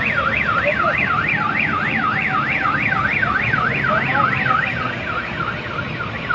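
Electronic alarm siren warbling, its pitch sweeping up and down about four times a second, fading somewhat near the end, over a low rumble of traffic.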